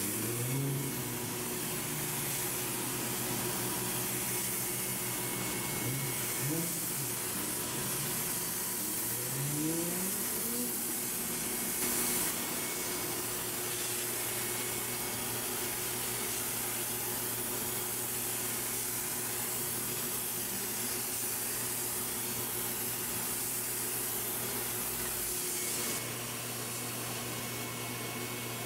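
Hose-fed HVLP spray gun running, a steady rush of air as rubber dip is sprayed, with the faint hum of its air supply underneath. The level drops a little near the end.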